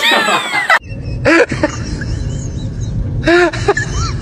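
Dog whining and yipping in short calls that each rise and fall in pitch: a cluster at the start, then single calls about a second in and about three seconds in, over a steady low background noise.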